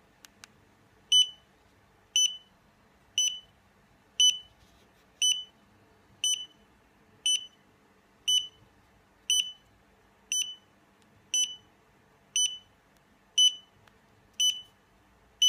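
Xiaomi Yi action camera beeping, one short high beep about every second in a steady repeat, after two faint clicks near the start. It is the sign of a camera bricked by a failed firmware upgrade, which keeps beeping like this until its battery dies.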